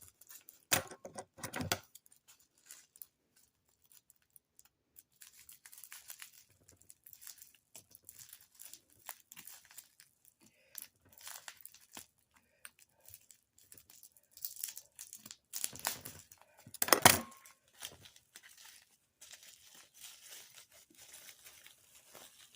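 Packaging being unwrapped by hand: intermittent crinkling and rustling with scattered clicks and small taps, and a louder burst of tearing and crinkling about seventeen seconds in.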